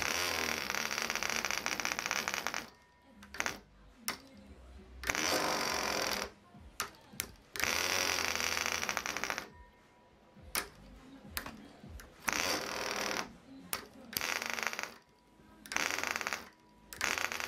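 VA 0.25 cc Mini Mills model diesel engine running at high revs with a fast, buzzing note that keeps dropping away and picking up again, in bursts of one to three seconds. The compression screw is being adjusted, and the engine is very sensitive to the setting and easily overcompressed.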